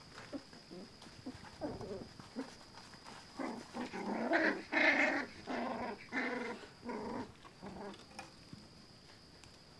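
Four-week-old puppies play-fighting, giving a string of short growls and yaps that are loudest and busiest about four to five seconds in.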